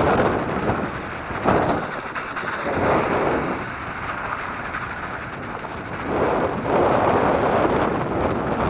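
Wind rushing over the microphone of a camera on a moving electric mountain bike, mixed with rumbling road noise from the tyres on a sandy dirt track. The rush swells and fades, loudest near the start and again from about six seconds in.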